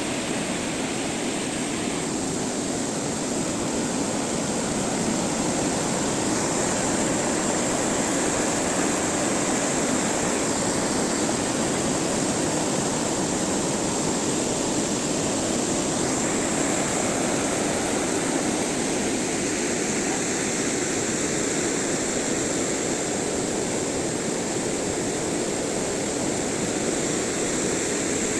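River water rushing in a steady, continuous roar.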